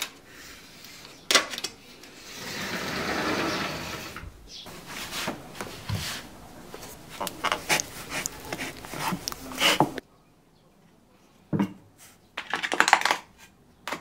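A sliding glass door clicks and rolls open along its track, then wooden geta sandals clack and knock against a stone step as they are put on and walked in, with more clacks near the end.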